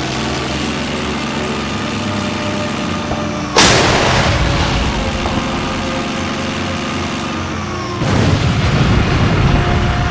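Tank battle sound effects: a steady tank engine rumble, then a single loud cannon shot about three and a half seconds in that rings away slowly. A heavier, rougher rumble sets in about eight seconds in.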